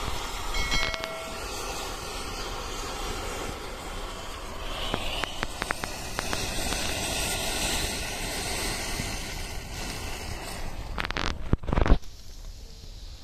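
Rows of packed matches burning in a chain reaction: a steady hissing rush of igniting match heads and flame, with scattered crackles and a burst of louder crackling about eleven seconds in.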